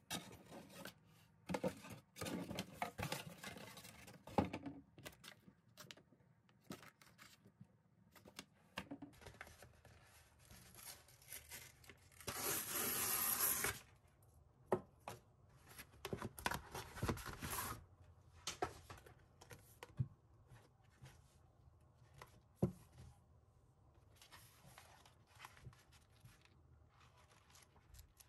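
Cardboard parcel being opened by hand: rustling, scraping and tapping of cardboard, with a loud tear lasting over a second about halfway and a shorter noisy stretch a few seconds later, then only light handling clicks near the end.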